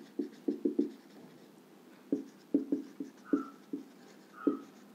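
Marker pen writing on a whiteboard: a run of quick strokes, a pause of about a second, then more strokes with two short squeaks.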